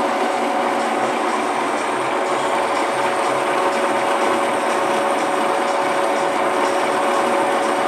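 TV-4 "Shkolnik" school lathe running steadily, its gears giving a constant whine while the cutter turns down a metal bar and peels off a long chip.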